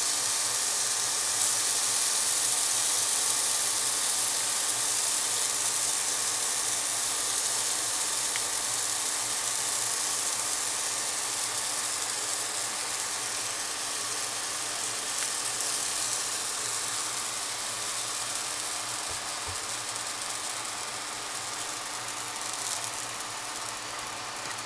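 Pancake batter sizzling in hot oil in a frying pan: a steady hiss that slowly fades.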